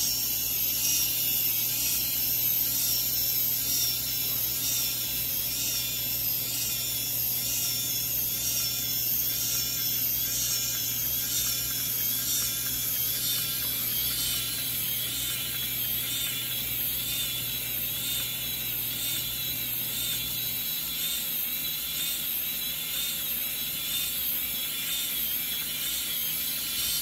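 Small electric motor and plastic gearbox of a 1:200 scale Titanic model driving its miniature reciprocating engines and propeller shafts: a steady whirring with regular, rapid ticking from the gears and moving parts.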